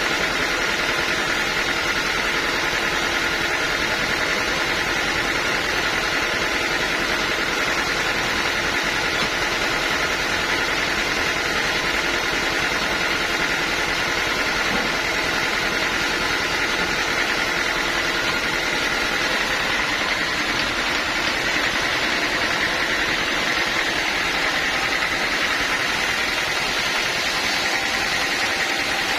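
Sawmill machinery running steadily: a constant engine drone with a steady high hum, unchanging throughout.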